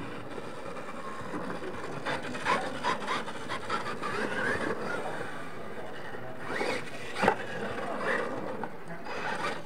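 Radio-controlled monster truck driving hard on loose dirt: tyres scrabbling and spraying dirt with a gritty scraping, and the motor whining up and down in pitch as it accelerates and slides. A sharp knock about seven seconds in.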